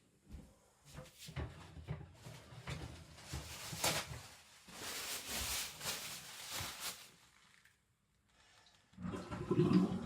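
Water splashing at a sink in irregular gushes, with a short pause about eight seconds in, as slurry is rinsed away.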